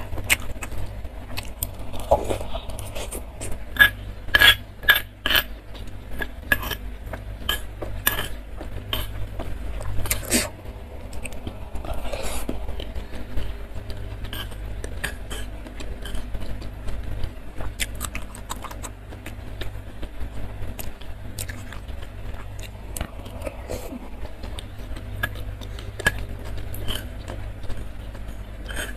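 Metal spoon clicking and scraping against a stone mortar bowl while scooping fried tofu in thin sauce, with close-up chewing of the tofu. The clicks come thickest in the first third, over a steady low hum.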